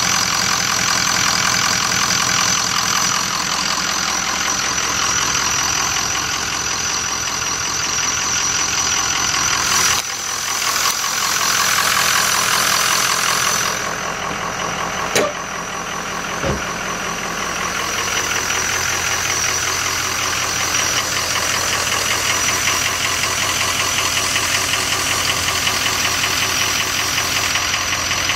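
Ford 6.0 Power Stroke V8 turbodiesel idling with its diesel clatter and a whistle from the turbocharger: the variable-geometry turbo oscillating, which the owner takes for normal at idle on early 6.0s. The sound changes for a few seconds about a third of the way in, and two sharp clicks come about halfway through.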